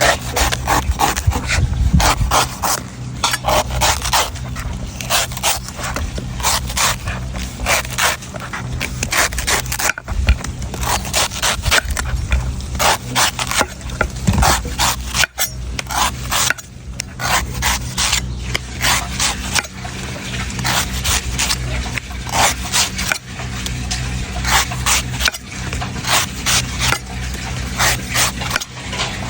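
Knife repeatedly shaving and chopping at a coconut's husk: quick, irregular scraping strokes, several a second, over a steady low hum.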